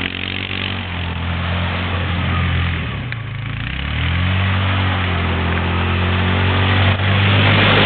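ATV engines running: a quad close by idles steadily, its engine speed sagging and picking back up midway, while another ATV is ridden at a distance.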